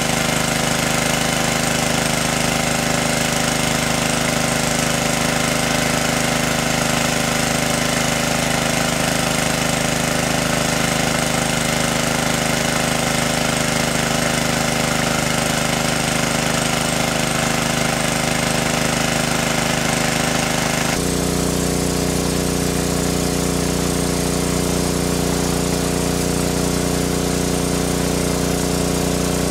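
Small engine-driven water pump running steadily while it pumps water. The engine's tone changes abruptly about three-quarters of the way through, then runs steady again.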